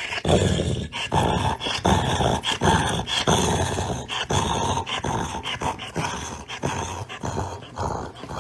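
A dog growling and grumbling in a quick string of short, rough vocal bursts.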